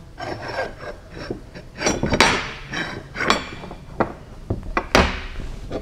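Steel outboard bearing being slid along a 1-inch 4140 steel sway-bar shaft: metal scraping, with several sharp clinks and clanks.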